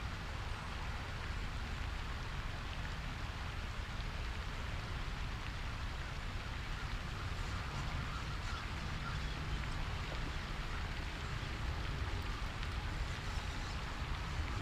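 Wind rumbling on the microphone over a steady, even hiss, with no distinct events.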